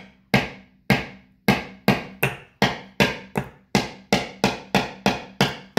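A claw hammer tapping a small nail through a thin wooden plate into a wooden block: about fifteen strikes at two to three a second, each with a short ring, quickening slightly. The taps are too light to drive the nail all the way in.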